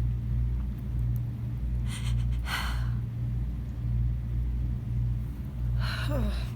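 A woman breathing heavily while she holds back a sneeze: a sharp inhale about two seconds in, then a voiced sigh falling in pitch near the end, over a steady low hum.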